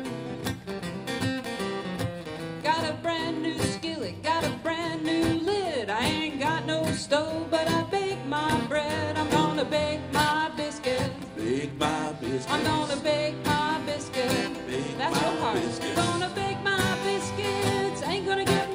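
Two acoustic guitars playing a blues song, with a woman singing over them.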